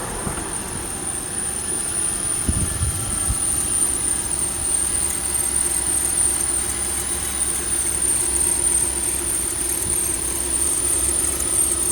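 Lexus GX470's 4.7-litre V8 running at idle with a steady high-pitched squeak from the engine bay, heard with the AC compressor off. A few short knocks about two and a half to three and a half seconds in.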